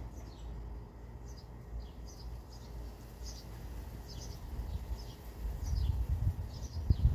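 A small bird chirping over and over, short high chirps that each drop in pitch, about one or two a second. Underneath is a low rumble on the microphone that grows louder near the end.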